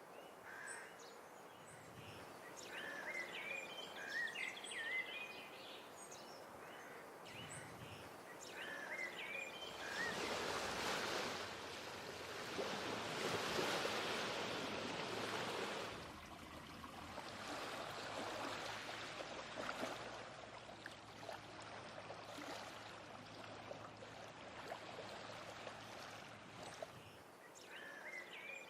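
Waves washing against the shore, swelling loudest about halfway through, with small birds chirping in the first few seconds and again near the end.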